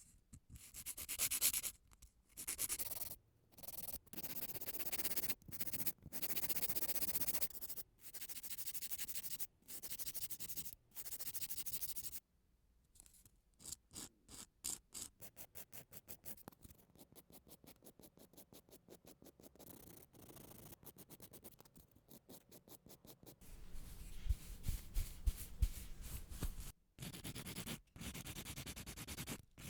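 A nail file rasping against a nail by hand: long strokes about a second each, then quicker, shorter strokes from about halfway through.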